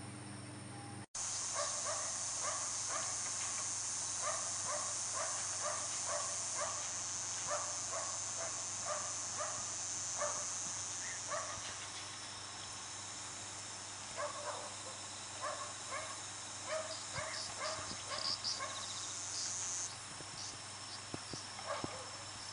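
A distant, echoing mechanical 'kasha-kon' clank repeating about twice a second, becoming sparser and irregular in the second half, over a steady high chirring of insects.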